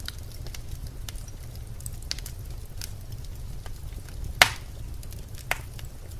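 Birch logs burning in a fireplace, crackling with scattered small snaps over a low steady rumble. A sharp, loud pop about four seconds in is followed by a smaller one a second later.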